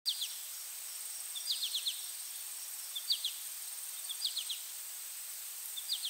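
Outdoor nature ambience: a bird repeats a short call of three or four quick falling notes about every second and a half. Under it runs a steady high insect drone and a soft hiss.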